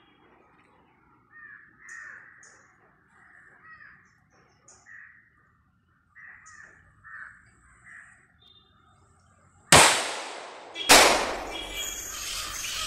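Harsh squawking calls repeat from the tree canopy. About ten seconds in, two palm-leaf firecrackers (ola padakkam) go off with loud bangs about a second apart, and a noisy rush follows.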